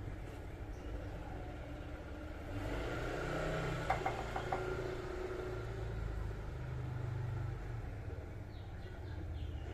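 Low, steady background rumble, with a few faint clicks about four seconds in.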